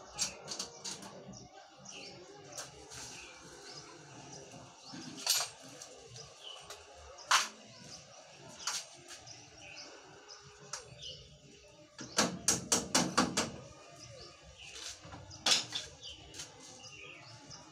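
Sharp metal knocks and taps on a sheet-steel dressing table as its mirror door is fitted, scattered singly and then in a quick run of about six taps about two-thirds of the way in.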